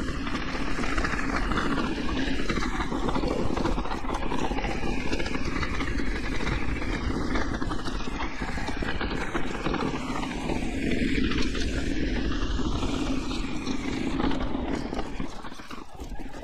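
Mountain bike, an e-MTB, riding down a rough trail: a steady rush of wind and tyre noise with many small knocks and rattles from the bike. It eases off a little near the end.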